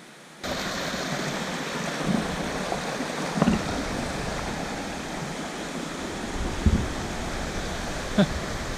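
Steady rush of stream water tumbling below a waterfall, with a few soft knocks.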